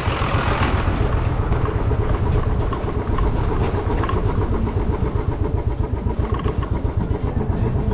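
Motorcycle being ridden on the road, its engine running under heavy wind buffeting on the microphone.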